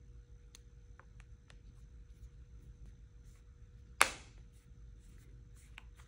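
The hard polycarbonate front piece of a Spigen Slim Armor Pro case snapping into place on a Galaxy Z Fold 6: one sharp plastic snap about four seconds in, after a few faint plastic clicks from handling the case piece.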